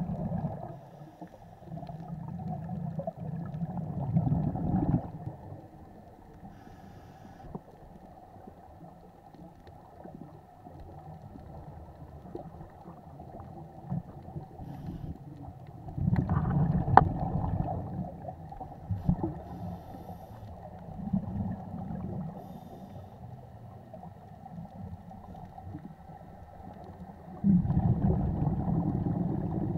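Scuba diver's exhaled bubbles from the regulator, recorded underwater and muffled: several bubbling outbursts of a few seconds each, at the start, in the middle and near the end, with a quieter low hiss of water between.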